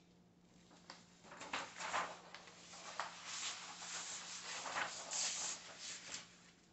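Large sheets of sketch paper rustling and sliding against each other as one drawing is set aside and the next is pulled out, a run of swishes starting about a second in.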